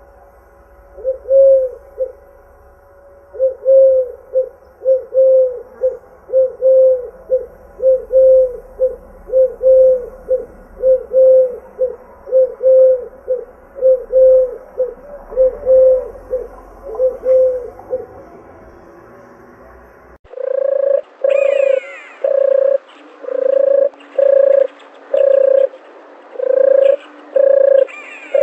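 Doves cooing: a long run of quick, evenly spaced coos, about two a second, which stops about 17 seconds in. About 20 seconds in the sound cuts abruptly to a second recording of steadier, fuller coos, with a few higher chirps from another bird.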